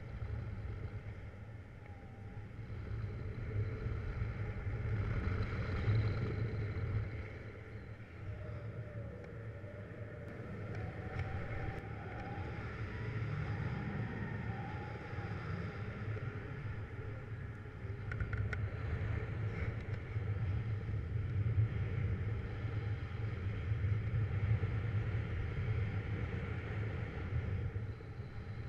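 Wind rushing over the camera microphone of a paraglider in flight: a steady low rumble that swells and eases.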